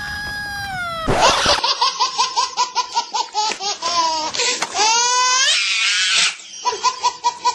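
A baby laughing hysterically: a high squeal that slides down, then rapid high-pitched bursts of laughter, with a rising squeal about five seconds in.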